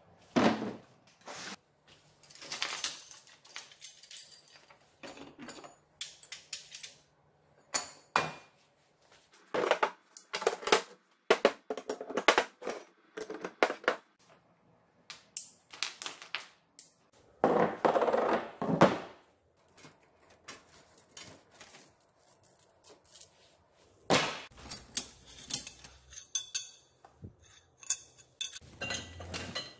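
Metal workshop parts being handled and set down: repeated clinks, clanks and knocks, with a longer clatter about eighteen seconds in. Near the end, steel sprockets clink against each other as they are rummaged through in a basket.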